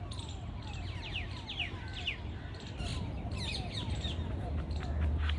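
Birds calling: a run of short, quickly falling chirps repeating over and over, above a steady low hum.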